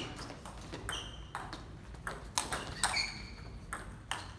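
Table tennis ball being struck back and forth in a rally: sharp clicks off the bats and bounces on the table, roughly every half second, several with a short high-pitched ping ringing after them.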